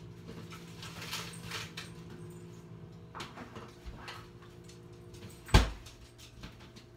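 Scattered soft handling knocks and rustles over a low steady hum, then one sharp, loud thump about five and a half seconds in.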